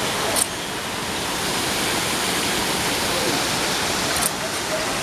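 Steady rush of water splashing from an outdoor garden fountain, with faint voices in the background.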